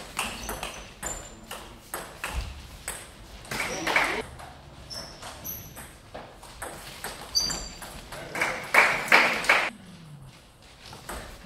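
Table tennis rallies: the ball clicking sharply off bats and table in quick succession, with voices in the hall rising loudly about four seconds in and again from about eight seconds.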